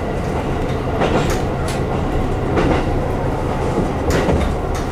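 JR Hokkaido KiHa 150 diesel railcar running along the line, heard from inside the driver's cab: a steady engine and running drone, with sharp clicks from the wheels over rail joints every second or so, often two close together.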